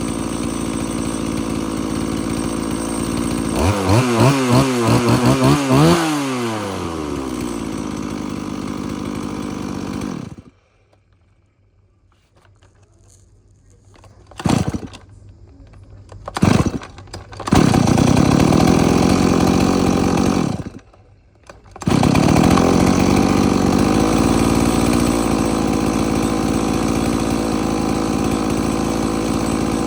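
Stihl MS180 two-stroke chainsaw running: it idles, is revved in a quick series of blips, then is switched off. After two short pulls that fire only briefly, it starts and runs for a few seconds, stops, then starts again and idles steadily until it is shut off near the end.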